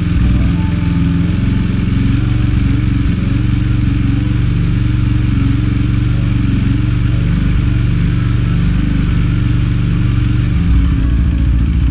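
KTM RC 390's single-cylinder engine idling steadily after being brought back to life from a year of storage, warming up. Near the end the low idle note changes slightly.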